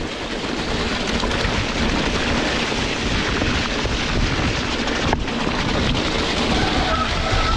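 Wind and heavy rain buffeting the microphone in a tropical storm, a loud, steady wash of noise. Near the end a train horn starts to sound, a steady held note.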